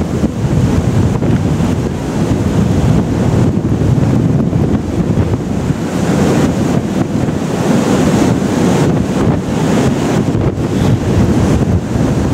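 Heavy wind buffeting the microphone over the continuous rush of whitewater breaking along a tall sailing ship's hull as she runs before a strong breeze.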